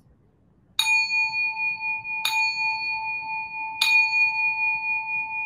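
A bell chime struck three times, about a second and a half apart, each strike ringing on in a long, steady tone. It signals that a timed work period is over.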